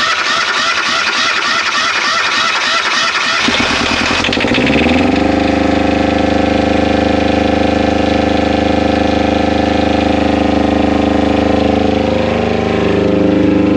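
Fischer Panda marine diesel generator cranking on its starter motor for about four seconds without glow-plug preheat. It then catches, its pitch rising briefly before it settles into a steady run.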